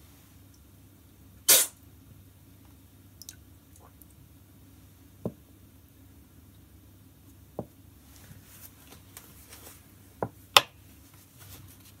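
Coffee slurped hard off a metal spoon while tasting, twice: a short hissing slurp about a second and a half in and another near the end. Between them come a few light knocks of the spoon against the cup and table.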